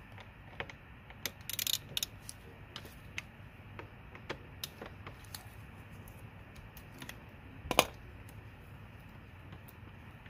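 Scattered light clicks and taps of hand tools and parts while a motorcycle's rear brake caliper is unbolted and freed, with one louder knock about three-quarters of the way through.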